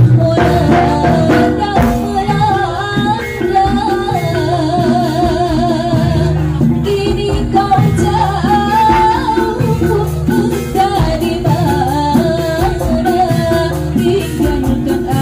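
A live Javanese jaranan ensemble playing a song, with a singer's wavering melody over steady drums and percussion.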